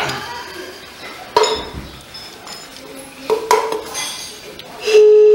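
Metal hand tools and small engine parts clinking and tapping while the fuel injector and throttle body of a Honda CG 150 are unbolted. Near the end a loud steady resonating tone starts.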